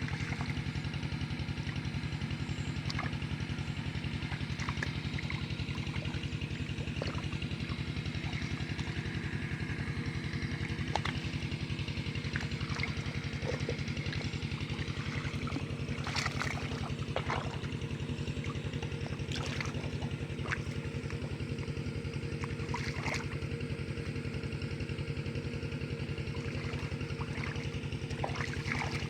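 A small engine running steadily at an even speed, with water trickling under it and a few short, sharp sounds partway through.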